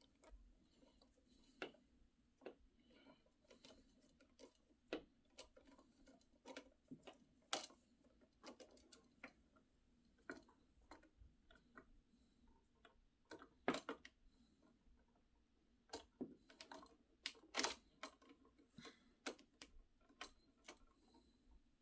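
Faint, irregular clicks and taps of small parts being handled while wiring a replacement toggle switch, with a few sharper knocks.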